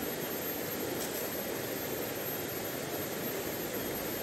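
Shallow stream rushing steadily over rocks and riffles, an even, unbroken wash of flowing water.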